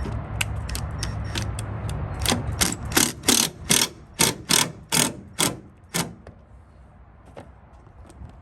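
Hand ratchet clicking through a quick run of about a dozen strokes, fastening a tail light's mounting bolts.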